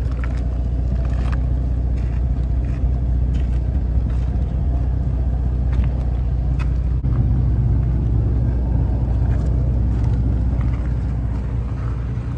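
ARB dual air compressor running with a steady low drone while airing up the tires, its hum getting a little stronger about seven seconds in. There are a few light clicks as the inflation hose's chuck is pushed onto a tire valve.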